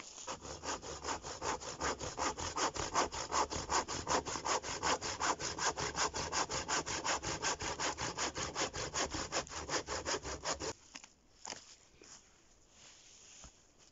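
Hand saw with coarse 8 mm-pitch teeth cutting through a dead, dry deadwood tree: fast, even back-and-forth strokes, about four a second, that stop about eleven seconds in.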